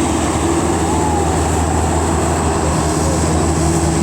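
Large tour bus's diesel engine running steadily under load, a deep, even drone.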